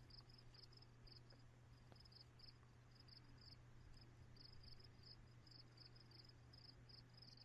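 Faint crickets chirping in an even pulse of about four chirps a second, over a faint low hum.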